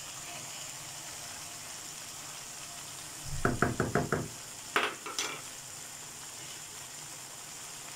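Cauliflower florets sizzling steadily in a nonstick wok, just splashed with a little water. About three seconds in, a wooden spatula stirs and scrapes them against the pan in a quick run of six or seven strokes, followed about a second later by two knocks.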